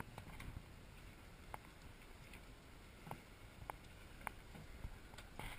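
Faint low rumble of wind and water around a small boat at sea, with a few light clicks or taps scattered through.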